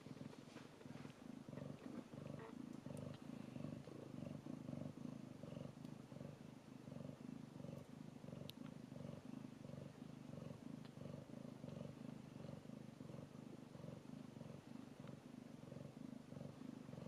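Cat purring steadily, the purr swelling and fading about twice a second with each breath, while newborn kittens nurse.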